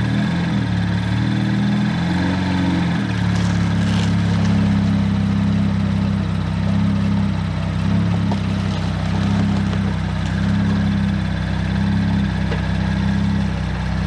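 BMW 335i's turbocharged inline-six engine idling, loud and steady, its note shifting briefly in the first few seconds before settling.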